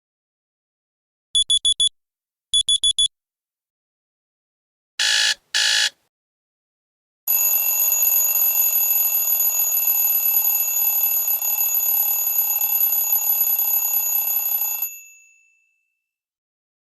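ZTE Kis II phone alarm tones played in turn: two sets of four quick beeps, then two short bursts of ringing, then one long continuous ring of about seven seconds that fades out.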